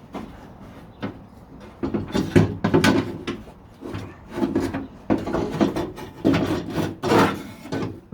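Scissor-type window regulator being wrestled out of a 1969 Corvette door: metal scraping and clunking against the door shell in an irregular run of knocks and scrapes, starting about two seconds in.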